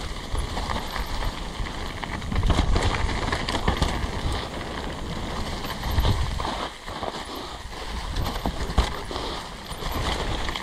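Downhill mountain bike descending a leaf-covered dirt trail: tyres rolling over leaves and roots, with the bike rattling and knocking over bumps and wind rumbling on the microphone.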